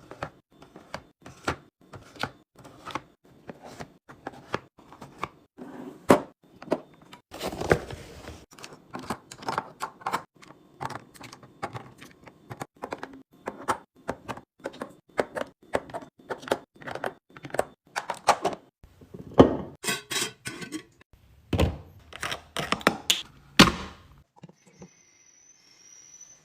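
Food containers and lids handled and set down: a run of irregular clicks, taps and thunks, with a few brief rustles.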